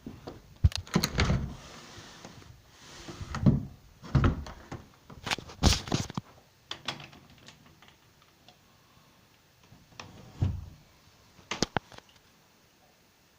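A series of irregular knocks and thuds, some in quick pairs, with a short hiss about two seconds in and a quieter gap before two or three more knocks near the end.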